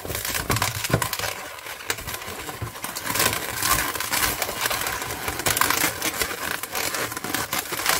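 Latex 260 modelling balloons rubbing and crackling against each other and against the hands as two of them are twisted together into a bubble: a run of short, irregular rasps and crackles.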